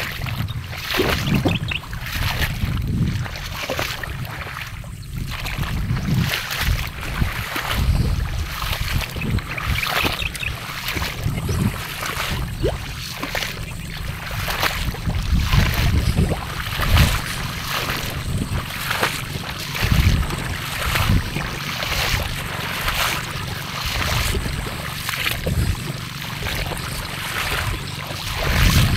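Wading through shallow muddy marsh water and thick floating water plants such as water spinach: a steady run of irregular sloshing, splashing steps, with the leaves and stems brushing and rustling.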